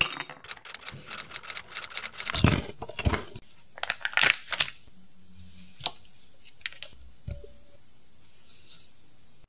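Paper wrapper on a stick of butter crinkling and rustling as it is handled and peeled open: a dense run of crisp little crackles over the first few seconds, a shorter cluster about four seconds in, then a few scattered light ticks.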